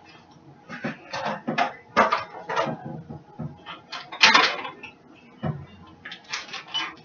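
Kitchen dishes and utensils being handled, giving a run of irregular clinks and knocks, the loudest a little over four seconds in.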